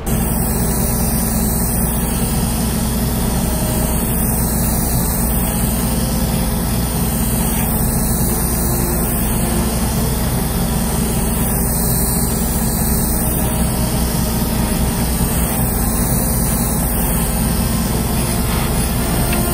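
Steady hum and hiss of airbrushing equipment, a spray booth extractor fan and airbrush compressor running, while gray lacquer is sprayed onto a plastic model hull.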